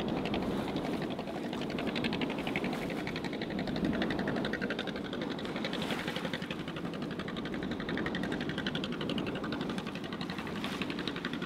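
A small boat engine running with a fast, even knock, over steady wind and wave noise.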